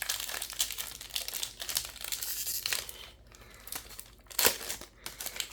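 Crinkling and rustling of a trading-card booster pack wrapper being handled, with one sharper, louder crackle about four and a half seconds in.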